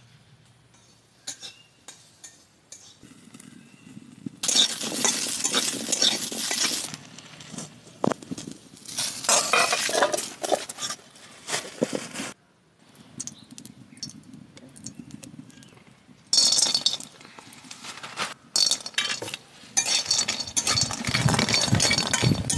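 Flat metal spatula scraping and clinking against a shallow aluminium wok while stirring food, in several spells of a couple of seconds each with quieter pauses between.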